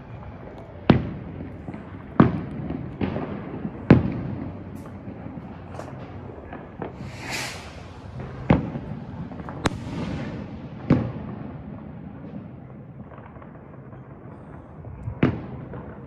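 Fireworks and firecrackers going off around the town: about seven sharp bangs at irregular intervals, the loudest early on and one near the end, each trailing off in an echo. A brief hiss comes about seven seconds in, and distant crackle and bangs fill the background.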